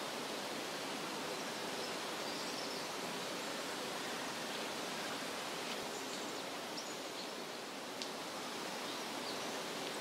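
Steady, even rushing hiss of outdoor ambience, with a few faint high chirps and a single click about eight seconds in.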